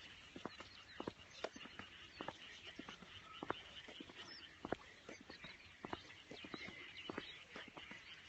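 A faint wetland chorus of frogs and birds: many short calls overlapping irregularly over a steady higher-pitched background chatter.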